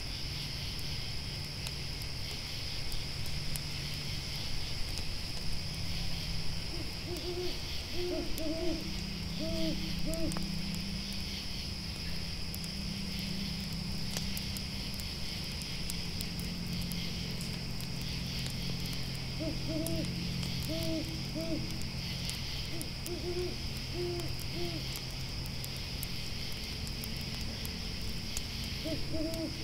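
An owl hooting in short groups of three or four arched hoots, recurring several times, over the steady high chirping of grasshoppers and the scattered pops of a crackling campfire. A low, steady hum sits underneath.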